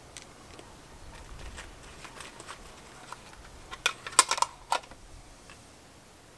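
A small metal tin being handled: light scattered ticks, then a quick cluster of sharp metallic clicks and taps about four seconds in.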